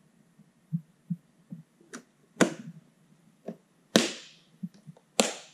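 Sharp plastic clacks and knocks from handling a Stanley plastic parts organizer: the clear lid shut and latches snapped. Three loud clacks come about two and a half, four and five seconds in, with lighter taps between.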